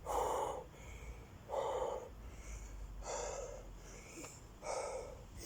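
A man breathing hard after a long set of five-count burpees, out of breath from the effort. Four heavy breaths come about every second and a half.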